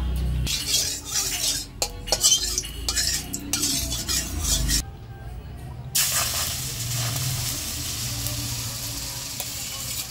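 Utensils clattering and scraping with stirring for the first few seconds, then, about six seconds in, flour batter poured into hot oil in an aluminium kadai starts to sizzle steadily as it fries.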